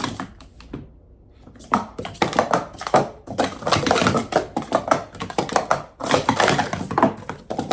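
Plastic Speed Stacks sport-stacking cups, the 2023 Asian Open clears, clattering through a fast timed cycle: a few clicks, a short pause, then a dense run of quick clacks and taps from about two seconds in as the cups are stacked up and down.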